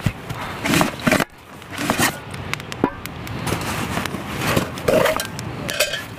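A metal canteen being pulled out of a canvas pack pocket: scraping and rustling of the canvas with irregular knocks and clicks from the bottle.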